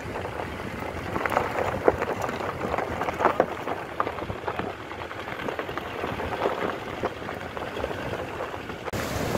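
Vehicle rolling slowly over a rough dirt road covered in loose rocks: tyres crunching gravel, with irregular cracks and clicks from stones under the wheels.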